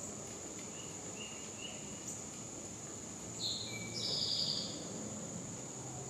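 A steady, high-pitched insect drone with a few short bird chirps, then a louder two-part bird call about three and a half seconds in.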